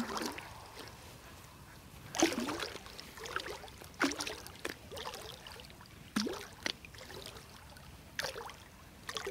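Water slapping and gurgling against an inflatable float tube, a sharp splash about every two seconds.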